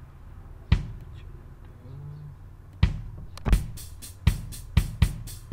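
Addictive Drums 2 virtual drum kit sequenced in FL Studio: a single drum hit about a second in, then from about three seconds in the programmed pattern plays back at 120 BPM, steady hi-hat strokes about four a second with low kick thumps on some beats.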